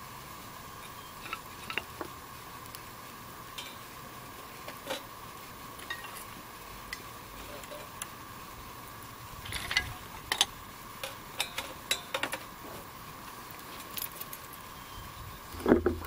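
Scattered light clicks and clinks as thin wooden sticks are fed into a small stainless steel twig stove, with the small wood fire in it crackling. The clicks come thickest about ten to twelve seconds in.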